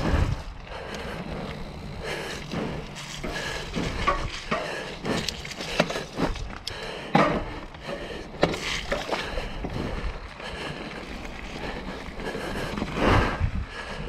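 A mountain bike being ridden over a dirt trail: a steady rushing noise with irregular knocks and rattles from the bike over bumps.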